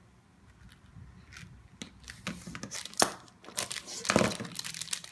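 Thin clear plastic bag rustling and crinkling under the hands, mixed with sharp clicks and taps of small plastic pieces. It grows busier after the first second or so, with the sharpest clicks about three and four seconds in.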